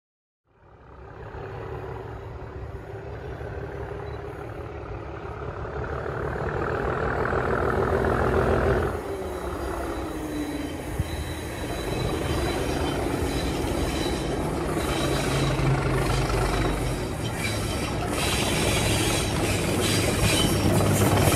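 Class 37 diesel locomotive approaching under power, its English Electric V12 engine growing steadily louder, with a thin high whine over the engine note. The sound dips suddenly about nine seconds in, then builds again as the locomotive nears.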